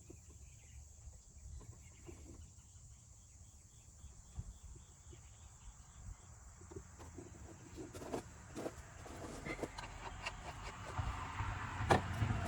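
Power steering fluid being poured from a bottle into the power steering reservoir. It is faint at first, and the pouring noise grows louder over the last few seconds, with a few small knocks. A steady high chirr of crickets runs underneath.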